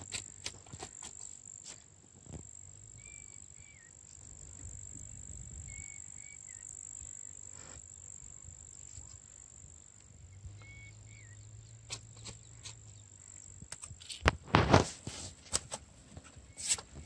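Quiet riverbank ambience with a steady high-pitched whine and a few faint short chirps, then from about 14 seconds in loud clattering and rustling as a mesh keep net and its rope are handled on bare rock.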